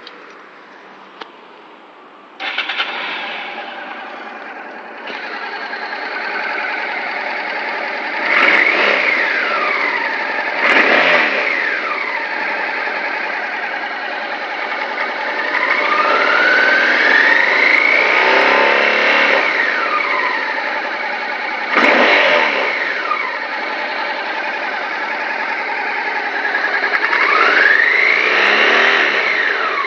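Honda Africa Twin motorcycle engine starting up about two and a half seconds in, then idling and being revved several times, its pitch climbing and falling back, with one slower, longer rev in the middle.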